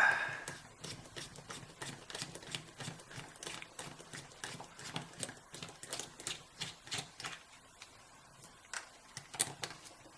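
A sharp knock at the start, then rapid irregular small metallic clicks and taps from lock-picking tools working the pins of a Medeco Biaxial high-security pin-tumbler lock, thinning out to a few scattered clicks near the end.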